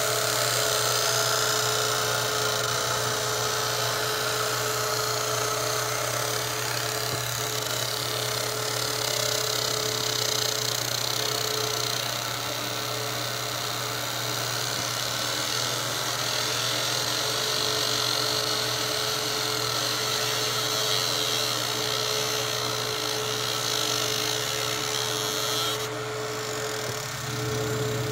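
Laser engraver marking a steel 1911 pistol slide: a steady high hiss and buzz from the beam working the metal over the machine's constant low hum. The high hiss cuts off about two seconds before the end while the hum carries on.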